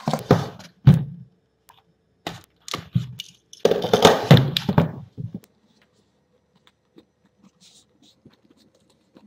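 Handling a cardboard smartphone box with a pocket knife: clicks and knocks, then a scraping, crackling stretch about four seconds in as the blade cuts through the box's seal sticker, followed by only faint light taps and rustles.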